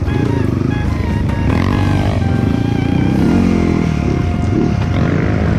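Dirt bike engine revving, its pitch rising and falling several times, under background music.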